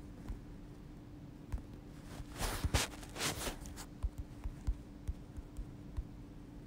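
Faint rustling: a few soft swishes a couple of seconds in, then scattered light clicks, over a steady low hum.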